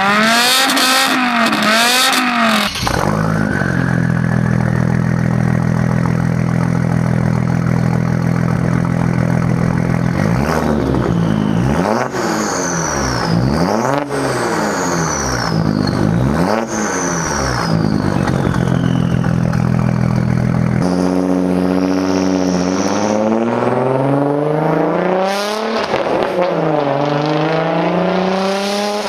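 BMW M6's V10 revving hard through a straight-piped exhaust, then a cut to a straight-piped Audi S4 engine idling with a deep steady drone. The S4 is blipped three times, a high whistle falling away after each, and is revved again with rising and falling pitch as it pulls away.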